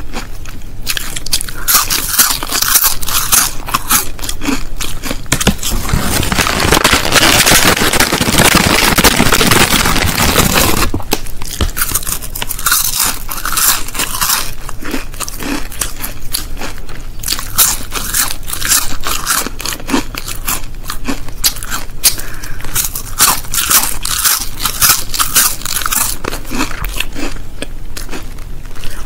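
Crisps being crunched and chewed close to the microphone, with the crisp packet's plastic crackling; a long spell of dense crackling runs from about six to eleven seconds in.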